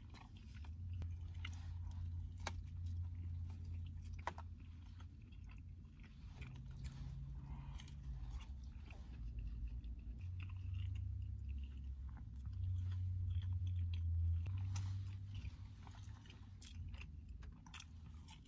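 A person chewing mouthfuls of a soft sandwich, with wet mouth clicks scattered throughout, over a low hum that swells and fades.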